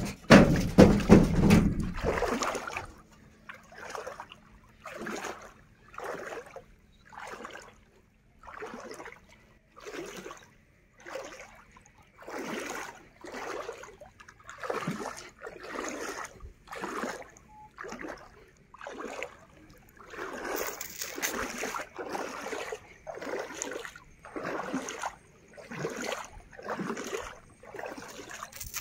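Rhythmic sloshing of floodwater as someone wades through it, one swish per step, about three steps every two seconds. It opens with a louder rush of noise in the first two seconds.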